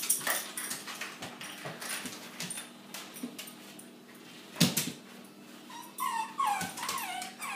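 Small Chihuahua-type dog whimpering in a run of short, high whines near the end as it strains to reach its ball in a deep bin. Its claws scrape on the plastic storage bins, with one sharp knock about halfway through.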